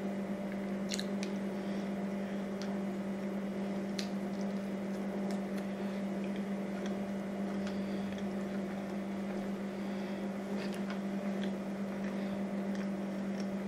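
Close-up chewing and wet mouth sounds of someone eating a burger and French fries, with scattered short lip smacks and clicks, over a steady low hum.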